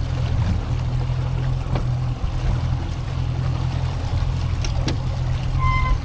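Steady low engine hum. A short beep sounds near the end.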